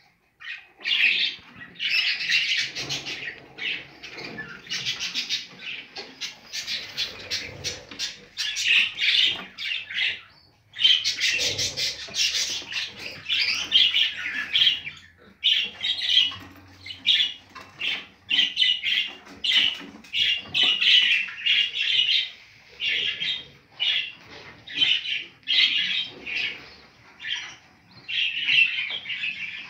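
Budgerigars chirping in rapid, nearly continuous high calls, with brief pauses about ten and fifteen seconds in.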